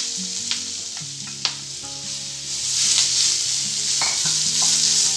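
Fresh drumstick (moringa) leaves sizzling in hot oil in a frying pan as they are stirred with a wooden spatula, with a few sharp clicks of the spatula against the pan. The sizzle grows louder about halfway through.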